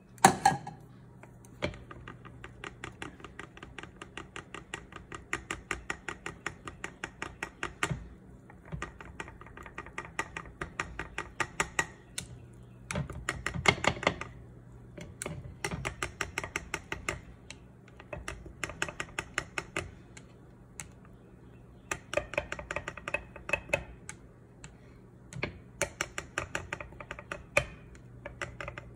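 Plastic chopsticks beating runny crepe batter in a glass bowl, clicking against the glass in quick runs of taps with short pauses between. A single loud knock right at the start.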